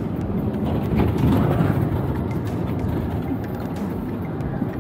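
Ford Bronco 4-door Badlands being driven on a dirt course: a steady rumble of engine and tyres on dirt, with scattered faint ticks.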